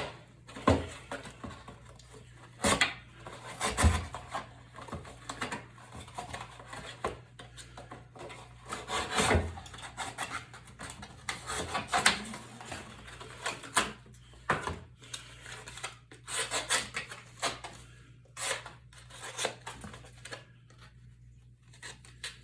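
Swiss Tech Wurdig folding knife cutting and ripping a cardboard whisky box: uneven scraping and tearing strokes, with sharp knocks as the cardboard is handled.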